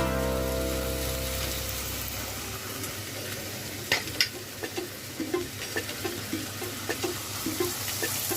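Chopped onions and tomatoes sizzling in hot oil in a pan while being stirred with a spoon, which knocks sharply against the pan twice about four seconds in and then scrapes it with light regular strokes.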